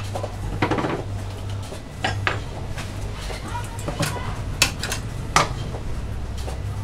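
Scattered metallic clicks and knocks as a heavy-duty long-arm stapler and a stack of paper are handled, about seven in all, with a short paper rustle just before a second in. A steady low hum runs underneath.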